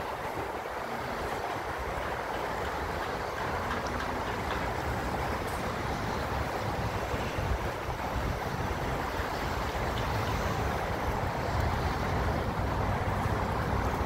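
Steady rushing noise of wind in a snowstorm, with low, uneven buffeting on the microphone that grows stronger about halfway through.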